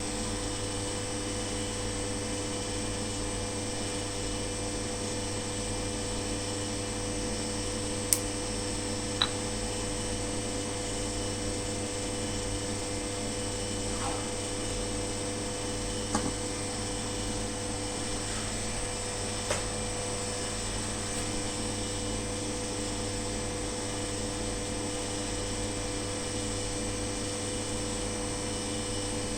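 Steady machine hum with a low electrical drone and a few faint clicks.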